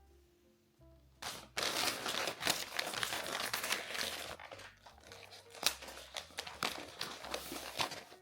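Packaging being crumpled and torn by hand, a dense irregular crinkling and rustling that starts about a second in and runs on with sharp crackles.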